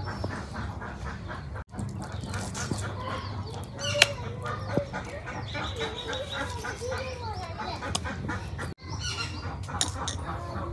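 Chickens clucking, mixed with the knocks and splashes of raw chicken meat being washed by hand.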